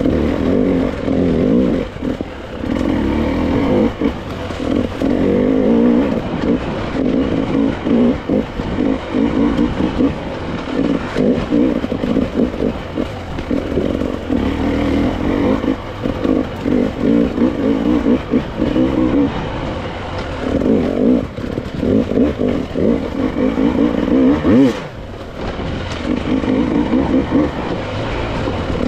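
Gas Gas enduro dirt bike engine revving up and dropping back over and over as the bike picks its way through a field of large rocks. About 25 seconds in the engine briefly drops off with a sharp knock.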